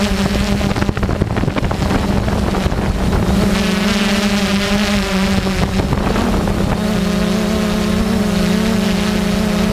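Quadcopter drone's motors and propellers humming steadily, with a low wind rumble on the microphone; the pitch wavers slightly around the middle.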